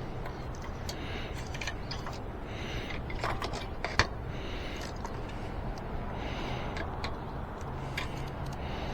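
Small clicks and rubbing of a bicycle tire being worked onto its rim by hand, with one sharp click about four seconds in, over a steady low hum.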